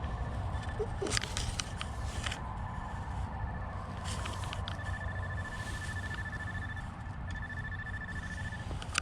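Electronic tone from a sprinkler wire locator's receiver: a rapid pulsing high beep that grows stronger and weaker and breaks off a few times as the wire is traced, with a few clicks and scrapes.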